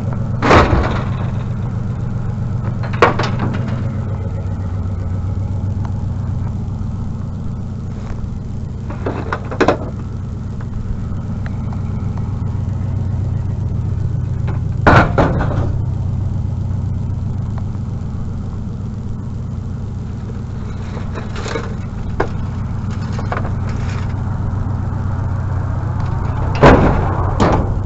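Truck engine idling steadily, broken by about six sharp bangs and clanks spread through the stretch as scrap is handled and loaded.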